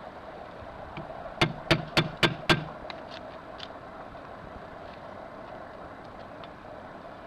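Five quick hammer blows, about four a second, struck through a wooden block against an outboard motor's propeller to knock it loose from the propeller shaft, followed by a few lighter knocks. A steady hum runs underneath.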